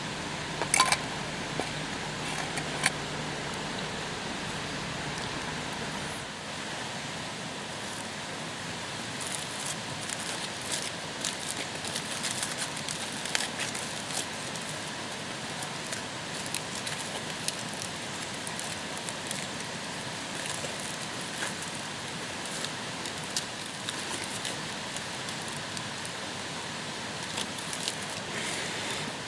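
Wood campfire crackling, with scattered small pops and snaps over a steady hiss.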